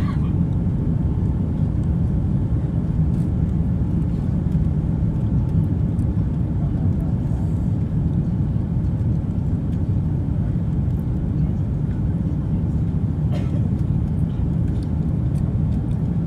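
Steady low rumble of airliner cabin noise during the landing approach, engines and rushing air heard from inside the passenger cabin.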